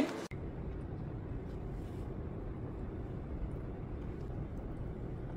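Steady low rumbling background noise with a few faint clicks.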